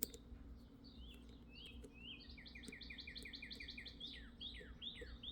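A songbird singing faintly in the background: a few short chirps, then a quick run of rapidly repeated notes, ending in several downward-sliding notes. A single sharp click sounds right at the start.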